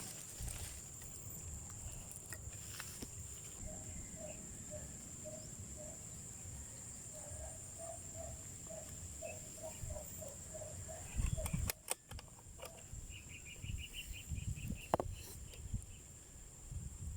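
Outdoor insect buzz, high and steady, with a bird giving a long run of short repeated notes, then a brief higher trill later. About two-thirds of the way through, a thump and a few sharp clicks, the loudest sounds here.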